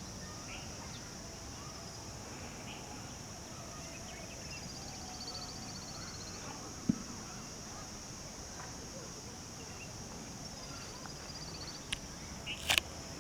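Morning birdsong: a descending trill repeats three times over a steady high insect-like buzz, with scattered faint chirps. A sharp click comes about seven seconds in, and a few loud, short sounds come together near the end.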